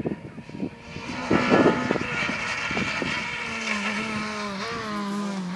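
Rally car driving past at speed on a gravel stage, its engine pulling hard, then the engine note dropping steadily in pitch as it goes away.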